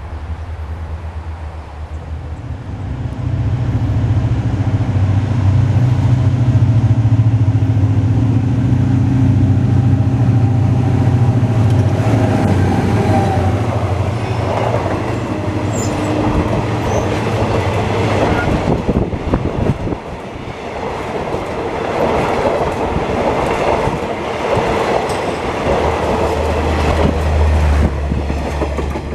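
Diesel locomotive engine running loud as it draws close and passes, followed by the passenger coaches' wheels clattering over the rail joints in a fast run of clicks.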